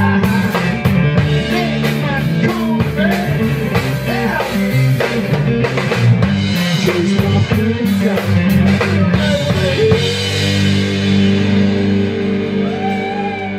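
Live rock band of electric guitars, bass guitar and drum kit playing loudly. About ten seconds in the drumming stops and the band holds a ringing chord that starts to fade near the end.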